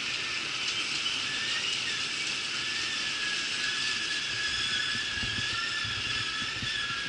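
Passenger train cars rolling past over a bridge: a steady rush of wheels on rail with a thin, wavering high squeal of steel wheels against the rails. A few low bumps come in about five seconds in.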